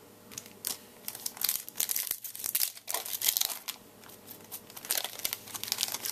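Foil wrapper of a Topps Chrome trading-card pack being torn open and crinkled by hand, a dense run of sharp crackles that eases off about four seconds in and picks up again near the end.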